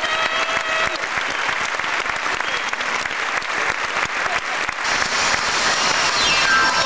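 Theatre audience applauding, many hands clapping together. The last held notes of the music fade in the first second, and near the end music starts up again with a falling run of notes.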